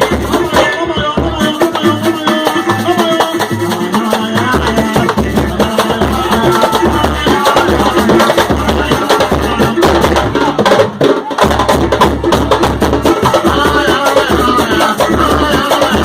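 Samba music in a roda de samba: a steady percussion groove with regular low drum beats, clicking hand percussion, and melodic instruments over it.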